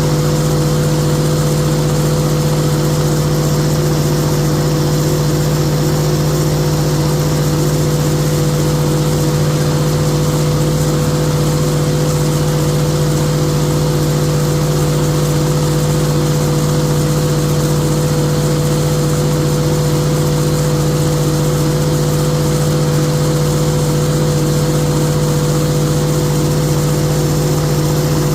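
Pile-driving rig running steadily while driving steel H piles: a loud, constant mechanical hum with a fast low pulsing and no separate hammer blows.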